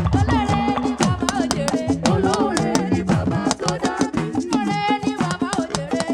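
Live upbeat gospel praise band music with fast percussion and shakers, in a Latin-like groove.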